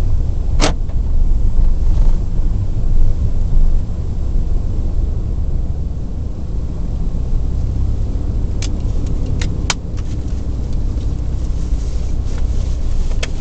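Steady low rumble of a car driving slowly, as picked up by a dashcam mic inside the car: engine and road drone, with a few sharp clicks, one just after the start and several more in the second half.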